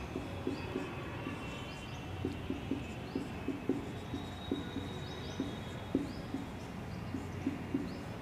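Marker writing on a whiteboard: a run of irregular soft taps and strokes as letters are written, over a steady low room hum.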